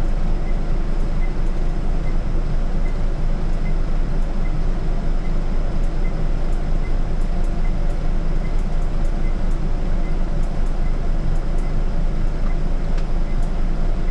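Scania city bus heard from the driver's seat: a steady engine and road rumble, with a faint regular ticking about two to three times a second and scattered light rattles.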